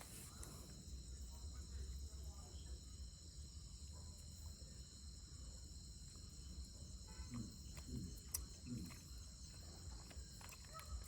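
Crickets in a steady, unbroken chorus of high trilling, with a low rumble underneath.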